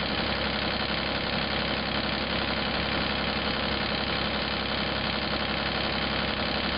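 Diesel engine of a Cat 303.5E2 CR mini excavator running steadily, heard close up with the engine compartment open.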